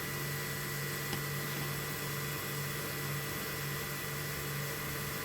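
A small electric motor running steadily, with a constant hum and hiss.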